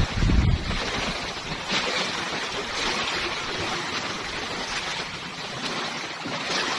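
Steady wind and sea noise, with gusts buffeting the microphone as low rumbles in the first half second or so.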